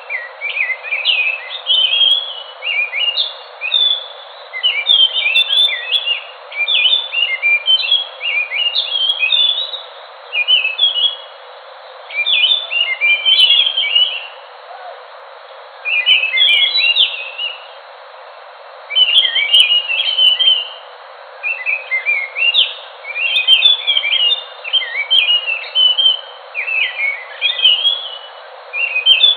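A ground thrush (anis, genus Geokichla) singing long phrases of quick, sliding whistled notes in dense bursts, with short pauses between phrases, over a steady hiss.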